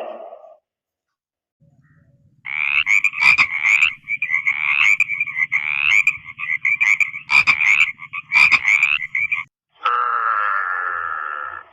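A frog calling, a run of repeated croaking calls of about half a second each, several a second apart, with a few sharp clicks among them. Near the end a different drawn-out sound begins.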